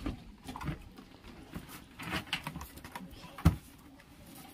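Footsteps and handling noises: scattered light knocks and rustles, with one sharp knock about three and a half seconds in.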